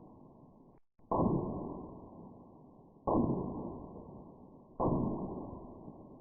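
Three loud, sharp bangs about two seconds apart, each trailing off slowly over the next two seconds. They are picked up muffled and narrow by a doorbell camera's microphone.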